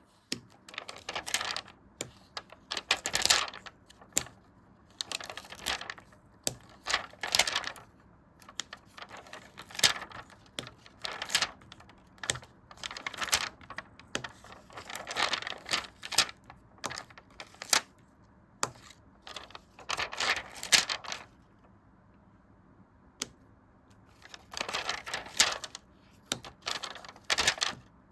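Paper and sticker handling from sticker journaling: irregular short bursts of crisp rustling, scratching and tapping, with brief quiet gaps between them and a longer pause about three quarters of the way through.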